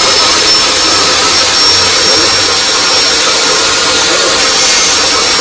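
Table saw running at full speed with a steady high whine while a large plywood panel is fed through the blade.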